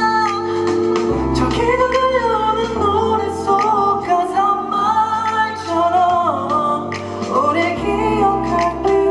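A male singer's voice carrying a gliding melody over held keyboard chords and a bass line that changes every second or two, in a live pop ballad performance.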